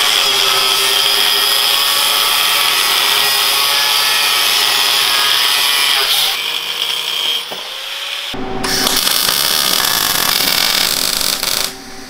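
Angle grinder cutting through steel flat-stock bracket: a loud, steady high whine with a hiss. The grinding breaks off briefly about eight seconds in, then resumes with a lower whine.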